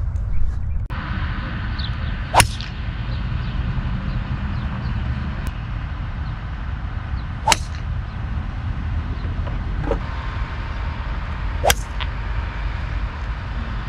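Golf drivers striking balls off the tee: three sharp cracks of club on ball, about five and then four seconds apart, over a steady low rumble.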